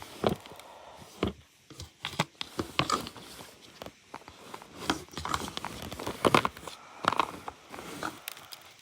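Irregular clicks, knocks and crinkling rustles of plastic vacuum-cleaner parts and packed debris being handled as a Hoover vacuum is taken apart and cleaned out.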